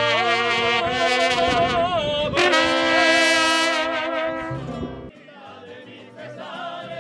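Mariachi band playing live: trumpets with vibrato over strummed guitars and guitarrón, with a guitarist singing. About five seconds in the music drops suddenly to a quieter level.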